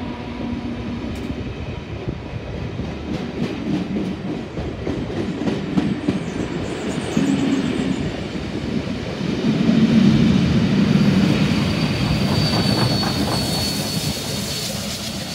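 Heritage train of vintage carriages rolling close past, with the rumble of the coaches and the clack of wheels over rail joints, loudest about two-thirds of the way through. A thin high wheel squeal sounds briefly near the end.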